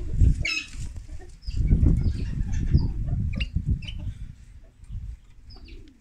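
Small cage finches chirping in short high calls scattered through, over a loud low rumbling noise that swells and fades.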